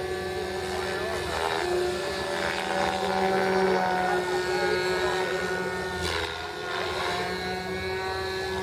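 Radio-controlled model helicopter flying overhead: a steady whine from its motor and rotors, made of several tones that waver and glide a little in pitch as it manoeuvres.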